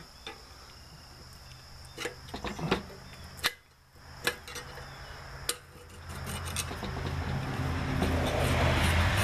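Screwdriver scraping and clicking against metal as old gasket cement and silicone are picked out of a fireplace insert's gasket channel, in short irregular strokes. From about six seconds in, a steady low rumbling noise swells up and stays loud under the scraping.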